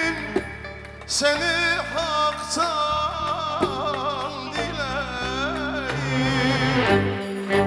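Male voice singing a Kerkük folk song (türkü) with wavering, ornamented melodic lines, accompanied by a live Turkish folk ensemble of violins, saz and davul.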